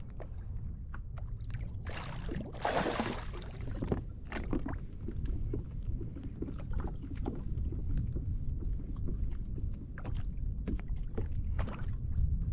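Water sloshing around a fishing kayak over a steady low rumble, with a louder rush of splashing about two seconds in and scattered small clicks and knocks against the hull and gear.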